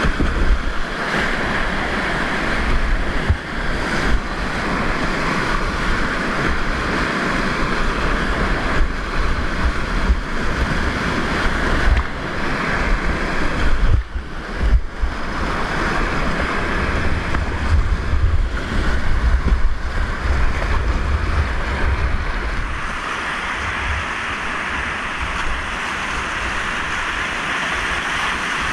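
Whitewater rapid heard from a kayak running through it: loud, steady rushing water with waves washing over the boat, and low buffeting on the microphone. The sound dips and breaks briefly about halfway through as a wave washes over the bow.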